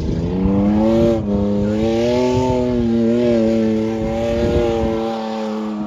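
A mud-drag vehicle's engine revving hard under load. Its pitch climbs for about a second, breaks briefly, then holds high and steady before easing off slightly near the end.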